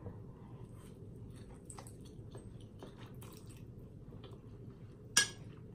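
Wet chewing and soft mouth clicks of a person eating a mouthful of instant noodles. A short, sharp, louder sound comes about five seconds in.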